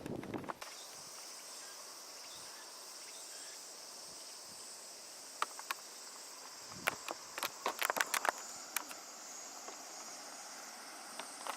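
Cicadas buzzing in a steady, high-pitched summer chorus, with a scatter of sharp clicks and taps between about five and nine seconds in.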